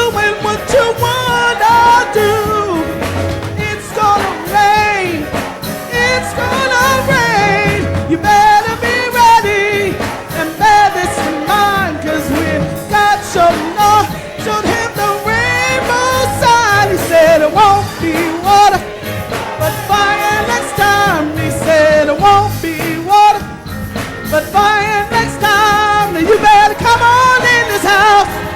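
A song: voices singing with vibrato over a band with a steady drum beat.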